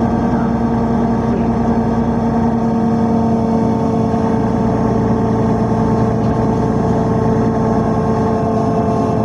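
Riyadh Metro train running at a steady speed: a continuous hum with several steady pitches over a rumble.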